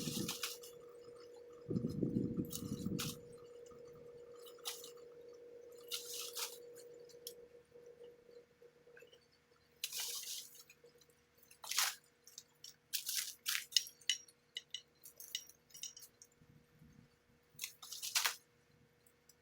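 Pruning tool cutting branches of a mountain soursop tree: irregular sharp snips and crackles with leaves rustling, busiest in the second half.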